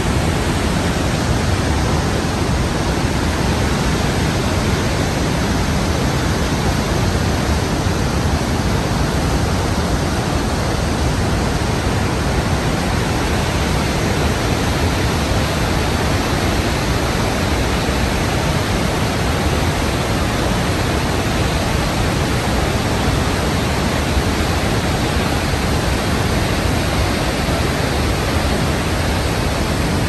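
Barron Falls in full flood: the steady, loud rush of a large volume of water pouring down the rock face into the gorge.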